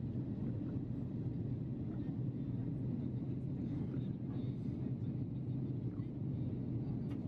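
Steady cabin noise of an Airbus A330-300 in flight, heard from inside the cabin: an even, low rumble of engines and airflow that neither rises nor falls.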